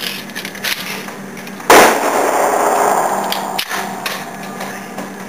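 A single handgun shot about two seconds in, sharp and loud, with a long echo in the indoor range fading over about two seconds. A few light metallic clicks of the pistol being handled come before and after it.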